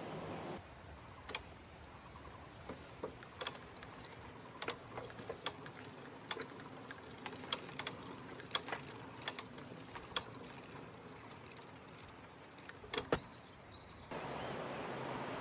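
Irregular light clicks and taps, a dozen or more, some with a slight ring, over a quiet background.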